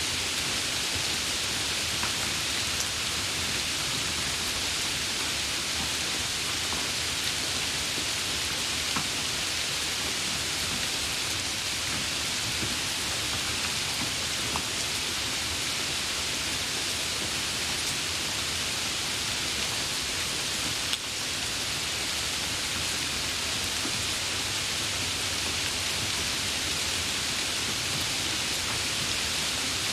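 Steady rain falling, an even hiss with scattered drop ticks, and one brief click about two-thirds of the way through.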